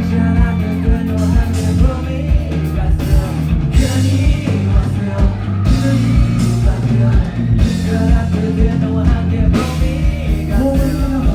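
A rock band playing live with a sung lead vocal over guitars, a drum kit and a strong bass line, with the kick drum hitting at a steady beat. It is heard from among the audience.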